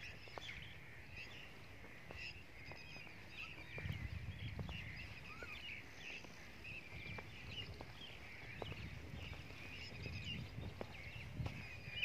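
Many small birds chirping and chattering continuously, with footsteps on a dirt track and a few gusts of low rumble near the middle and towards the end.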